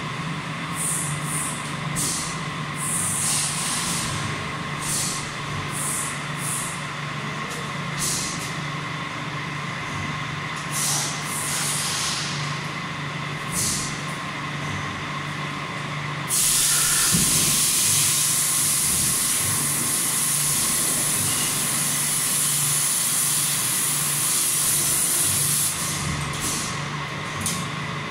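Compressed-air spray gun applying ML anti-corrosion compound into the body's hidden cavities: a series of short hisses, then one long hiss of about nine seconds. A steady mechanical hum runs underneath.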